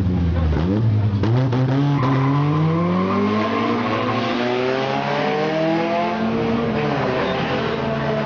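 Honda Civic race car's four-cylinder engine accelerating hard away from a pit stop. The pitch climbs, drops back and climbs again as it shifts up through the gears.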